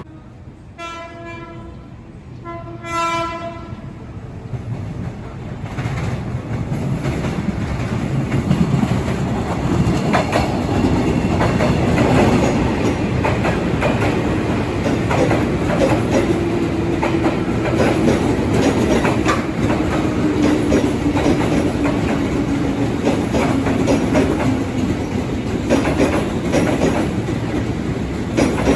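Train horn sounding two short blasts, then a train running close past with its wheels clacking over rail joints, growing louder and staying loud. A low tone slowly drops in pitch through the second half.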